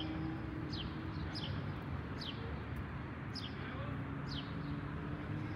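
A songbird repeating a short, high, downward-sweeping chirp about once a second, over a steady low hum.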